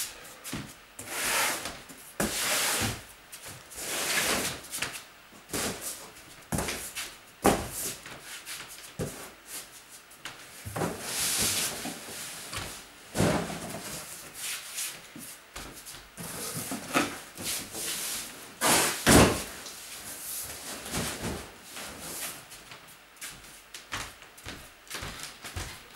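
Irregular handling noise of household belongings being moved about: knocks, bumps, scraping and rustling, with two sharper knocks about a third of the way in and again about three quarters through.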